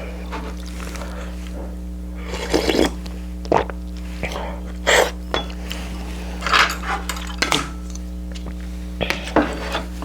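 Tableware clinking and clattering as someone eats: utensils knocking against dishes in short, irregular clinks, over a steady low hum.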